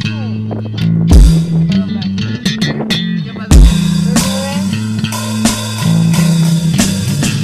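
Rock music played on bass guitar, guitar and drum kit, with a prominent bass line and occasional heavy kick-drum hits.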